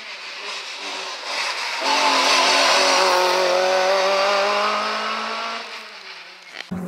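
Small hatchback rally car's engine at high revs, growing loud about two seconds in as it comes past, its note sinking slowly, then fading as it drives away.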